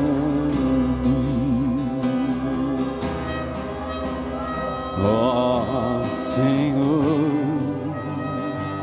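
Live worship band music: voices hold long sung notes with vibrato over acoustic guitar and sustained keyboard chords, and a new sung phrase slides up about five seconds in.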